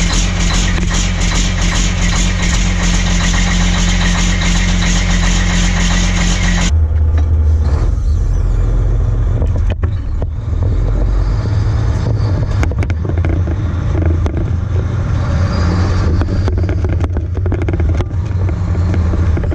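A heavy vehicle engine running steadily with a rapid fine pulsing. About seven seconds in it cuts off abruptly to a different, deeper engine sound that rises and falls, with occasional clicks and knocks.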